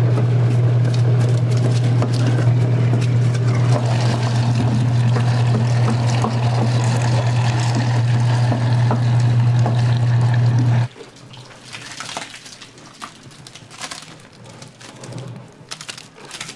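Electric food grinder running with a steady loud hum while chunks of Korean radish are pushed in and ground wet. It cuts off abruptly about eleven seconds in, leaving quieter wet scraping and dribbling as the ground radish slides out of a plastic basin.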